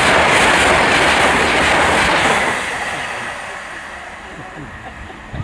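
TransPennine Express passenger train passing at speed, a loud rush of wheels on rail that fades away from about two and a half seconds in as the train recedes.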